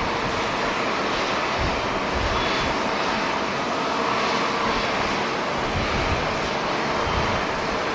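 Jet airliner engines running, a steady rushing noise, with a few low buffets of wind on the microphone.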